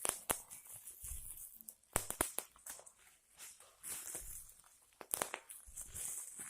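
Plastic crinkling by hand with scattered sharp clicks and pops: a few close together about two seconds in, and again past five seconds.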